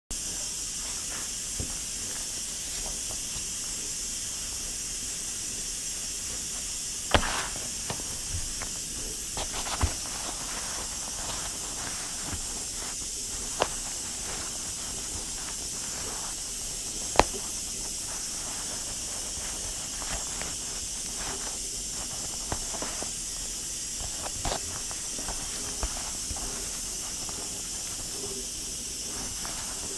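Pressure cooker hissing steam, a steady high hiss. Over it come scattered clicks and knocks of mittened hands working a citrus peeler and fruit on a wooden table, the sharpest about 7 and 17 seconds in.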